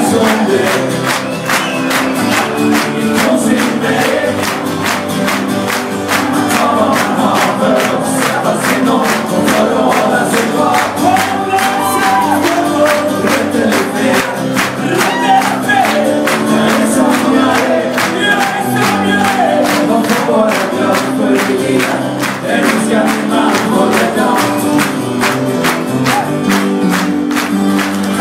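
Live acoustic band music, acoustic guitar and double bass playing a song with a steady, even beat, with singing over it.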